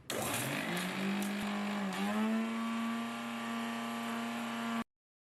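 Electric mixer grinder's motor starting up, its whine rising in pitch over the first second, then running steadily as it grinds tulsi leaves dry, with no water, into a paste. The pitch dips briefly about two seconds in, and the sound cuts off suddenly near the end.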